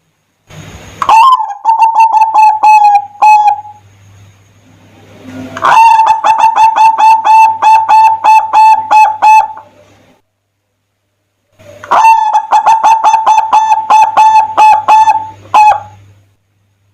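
Zebra dove (perkutut) singing: three phrases of rapid, evenly repeated cooing notes, about five a second, each phrase lasting a few seconds with short pauses between.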